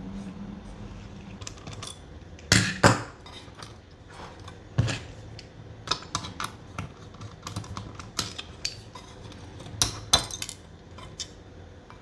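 Irregular clicks, taps and clatters of a screwdriver and small metal and plastic parts as a mini PC's heatsink bracket is unscrewed and handled, with a couple of louder knocks about two and a half seconds in and again near ten seconds.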